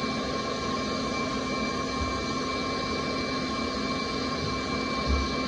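Handheld Makita vacuum cleaner running steadily with a constant whine, its nozzle held at a leaking radiator valve to suck up the water as the nut is loosened. A soft low bump near the end.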